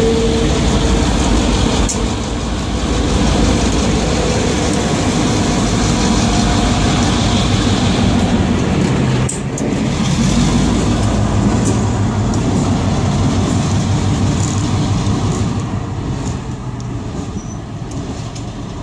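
Freight train's diesel locomotives passing close by, engines running with a steady low drone over the rumble of wheels on the rails. The sound fades over the last few seconds as the train moves away.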